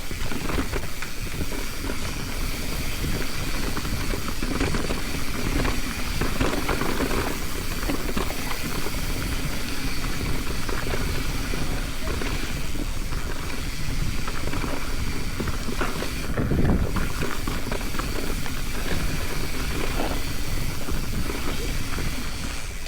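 Mountain bike descending a loose, rocky dirt trail: tyres grinding over dirt and rock, the bike rattling, and wind rushing over the microphone, with a louder low thump about three quarters of the way through.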